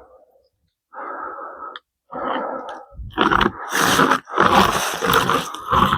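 Pocket chainsaw drawn back and forth through wood by hand, a rasping stroke for each pull; the strokes come faster and louder from about halfway through.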